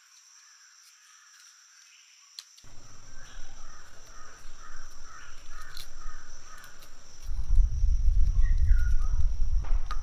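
Crows cawing, a run of harsh calls about four to seven seconds in, over a steady high insect drone. A loud low rumble takes over for the last three seconds.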